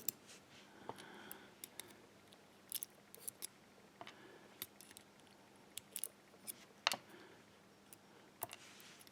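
Faint, irregular metallic clicks and ticks of small lock driver pins being handled with tweezers as they are checked one by one.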